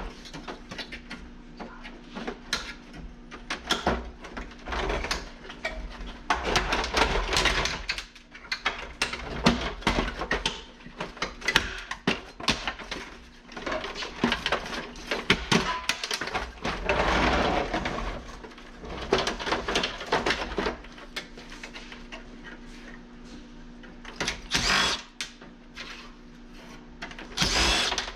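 Dismantling a dehumidifier with hand and power tools: clattering, scraping and clicks of metal parts being worked, with short bursts of a power drill, two of them near the end.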